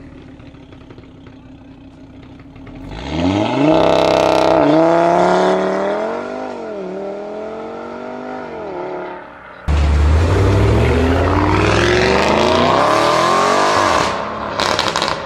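Audi RS3 Sportback's turbocharged five-cylinder engine revving hard as the car accelerates away about three seconds in, the note climbing and then wavering up and down. Past the middle the sound cuts abruptly to another performance car accelerating hard, louder, its engine note climbing steadily until near the end.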